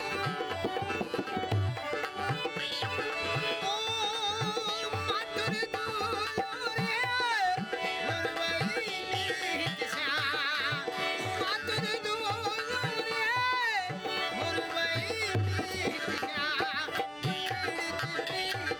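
Rajasthani Manganiyar folk song played live: a hand drum beats a steady rhythm of low strokes under a sung melody with wavering, ornamented pitch bends.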